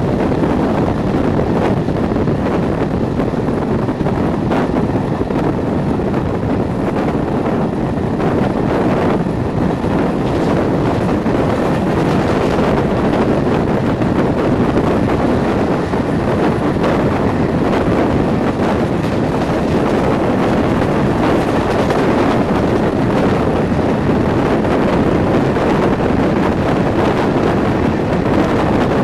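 Class 37 diesel locomotive's English Electric V12 engine working steadily as it hauls a train, heard through an open coach window with heavy wind on the microphone and the rumble of wheels on the rails.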